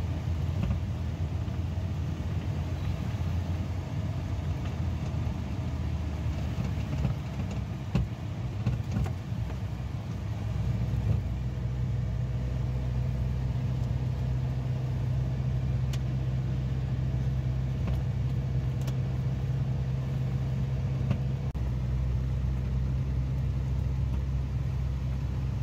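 Suzuki SJ-series 4x4's engine and road noise heard from inside the cabin while driving: a steady low drone that settles into an even hum about halfway through, with a few light knocks.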